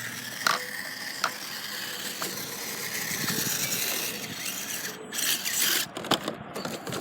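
RC rock-crawler truck running, with a mechanical rattle and clicking from its drivetrain and chassis and a few sharp knocks. A brief louder rush of noise comes about five seconds in.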